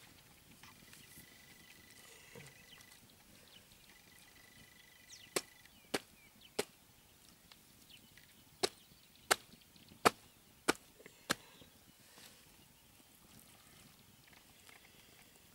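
Small hand axe chopping into a skinned porcupine carcass: eight sharp strikes in two runs, three and then five, each a little over half a second apart.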